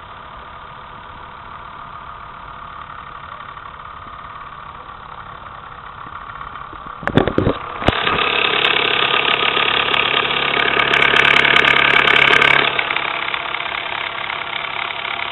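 Mamod SP2 toy stationary steam engine, with its single oscillating cylinder, running under steam with a rapid chuffing beat. A few sharp knocks come about seven seconds in, then it runs louder for several seconds before easing back.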